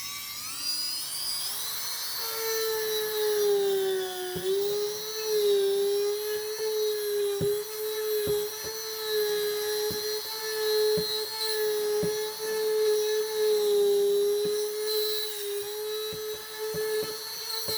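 Dremel rotary tool spinning up to a steady high whine, then grinding out the hole left by a removed threaded insert in a kayak hull. Its pitch dips briefly under load about four seconds in, with scattered short clicks as it works.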